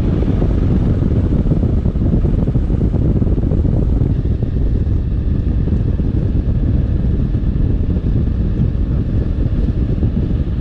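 Wind rushing and buffeting over a camera microphone on a moving motorcycle: a loud, steady rush with the rumble of the ride underneath.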